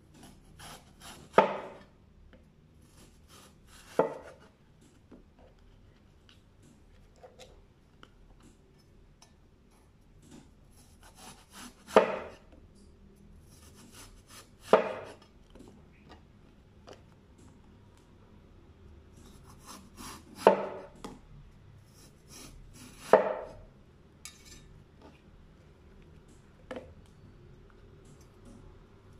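Cleaver chopping through eggplant onto a wooden chopping block: a sharp chop every few seconds, six loud ones in all, with quieter scraping and knocking of the blade and pieces between.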